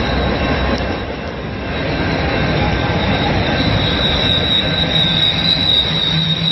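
Freight train rolling past with a deep steady rumble and a single high, steady metal squeal from its wheels, which grows louder and then cuts off abruptly near the end.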